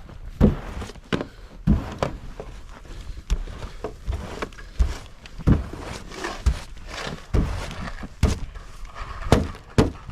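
Snow being cleared in repeated strokes: a dull thump or scrape about once a second, with a light hiss between the strokes.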